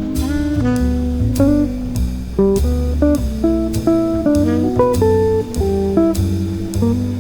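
Jazzy background music: plucked guitar over a walking bass line and a drum kit.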